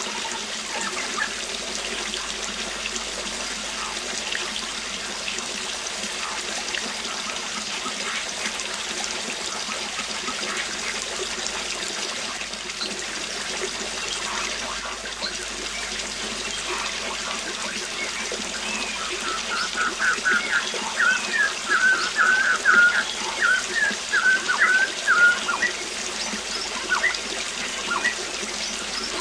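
Waterfall's steady rush of falling water, with bird chirps scattered through it. About two-thirds of the way in, a bird sings a fast run of chirping notes for several seconds; this is the loudest sound.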